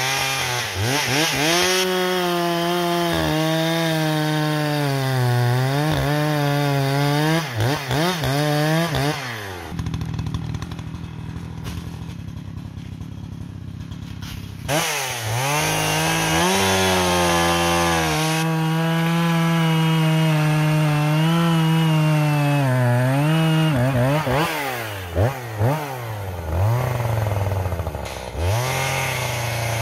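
Echo CS-620PW two-stroke chainsaw bucking a downed pine log into rounds. The engine holds high revs through the cuts, dropping off and revving back up between them, and falls to idle for about five seconds a third of the way in.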